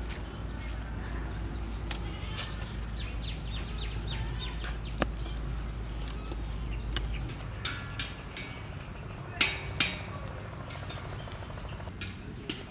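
Outdoor ambience with two short rising bird chirps in the first half, and scattered sharp clicks and taps from bamboo sticks being handled while a snare trap is set. The two loudest clicks come close together about three quarters of the way through.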